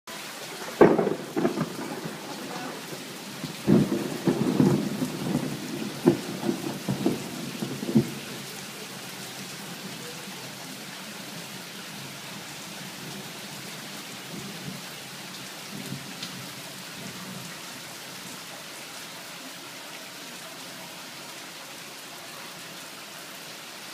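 Heavy rain falling steadily on a tiled courtyard. In the first eight seconds, loud cracks and rumbles of close thunder break over the rain, with a fainter rumble around the middle.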